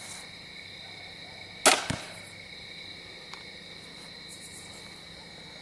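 A bow shot: a sharp snap as the string is released about a second and a half in, and the arrow striking the target a quarter second later. Crickets chirp steadily throughout.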